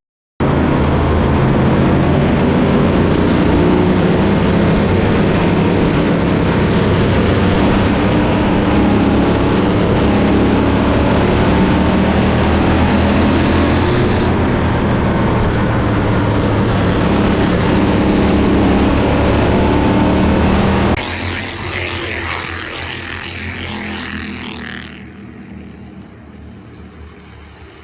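Race car engine running hard at a steady pace, loud and continuous. About 21 seconds in it drops sharply in level, and a few seconds later it drops again and fades lower.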